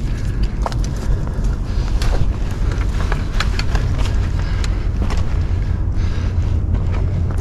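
Wind buffeting the microphone, a steady low rumble, with scattered small clicks and knocks throughout.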